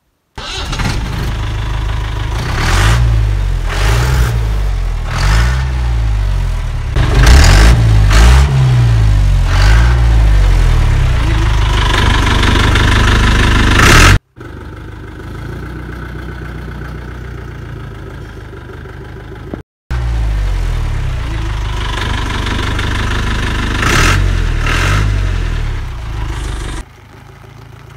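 Mahindra MDI jeep's diesel engine running and revved up and down several times, heard in separate takes with a quieter stretch in the middle.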